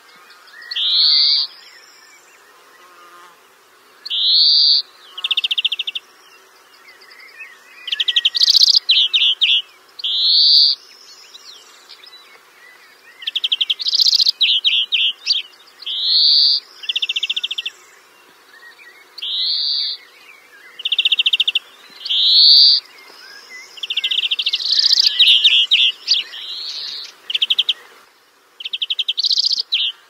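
A small songbird singing the same short phrase over and over, every two to three seconds: a quick rising note, often followed by a fast buzzy trill.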